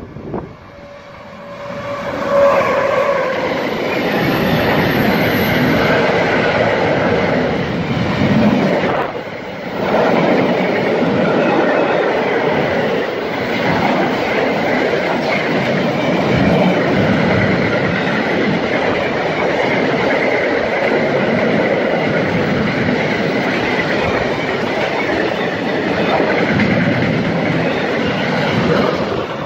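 A freight train of double-deck car-transporter wagons passing close by at speed. Its wheels roll loudly over the rails as the locomotive goes by about two seconds in, then there is a brief lull about nine seconds in before the steady rumble of the wagons returns.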